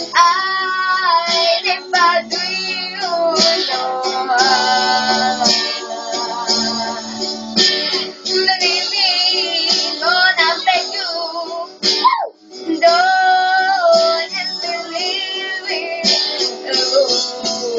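A girl singing a melodic song into a handheld microphone over guitar accompaniment, with a brief break in the voice about two-thirds of the way through.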